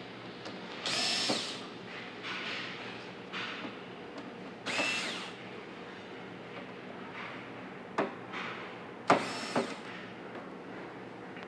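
Handheld inline power screwdriver backing out screws from a sheet-metal back panel: several short whirs, each under a second, one rising and falling in pitch. Sharp clicks come in the later part.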